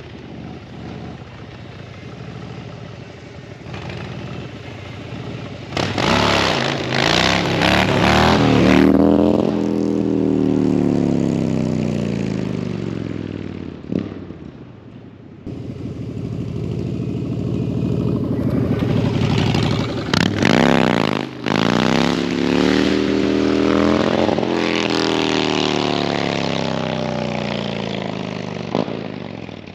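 Harley-Davidson V-twin engine revved hard in two long surges during burnouts, its pitch climbing and then falling back each time, with a noisy hiss from the spinning rear tyre during the high-rev stretches.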